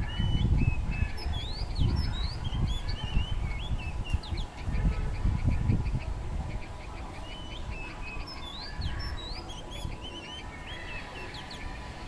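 Bulbul calling: quick bubbly phrases of short rising and falling whistled notes, in a burst through the first four seconds and again later on, over a low rumbling background.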